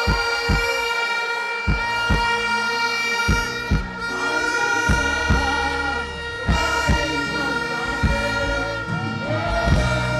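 Music over a sound system: a long held note sustained throughout over a kick-drum beat, with a heavy bass line coming in about halfway through.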